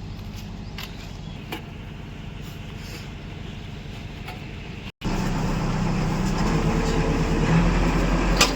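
Heavy diesel engine of a tractor or backhoe running steadily. About five seconds in the sound drops out for an instant and returns louder, as at a cut to another clip. A single sharp click sounds near the end.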